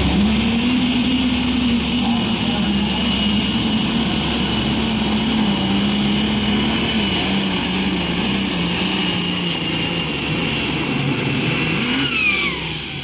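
Turbocharged diesel super stock pulling tractor running flat out under the sled's load, its engine note and high turbo whistle holding steady and sagging slowly as the pull goes on. About twelve seconds in the throttle comes off at the end of the pass and the engine and turbo wind down.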